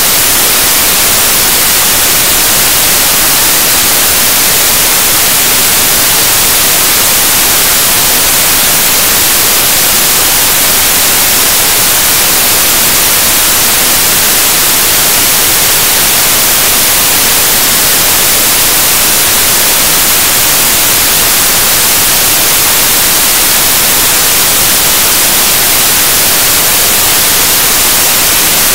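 Loud, steady static hiss, an even white noise with nothing else audible.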